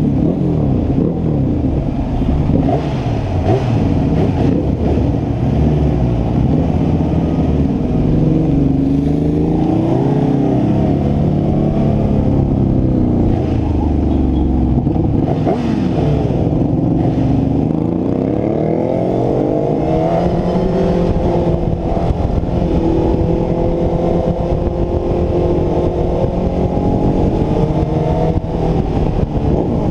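Kawasaki sport motorcycle's engine running under way, its pitch rising and falling as it speeds up and slows down, with a long climb in pitch through the gears in the second half. Steady wind and road rush run underneath.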